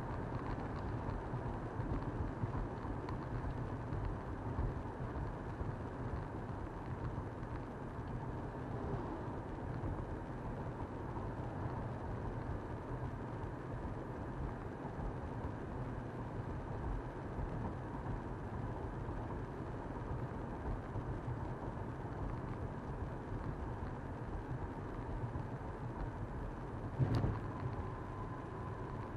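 A car driving along, with a steady rumble of engine and tyre noise. There is a short thump near the end.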